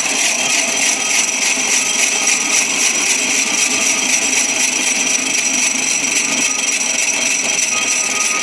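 Cotton candy machine running, its spinning head giving a steady high-pitched whine over a rough, even grinding rasp while it spins out sugar floss.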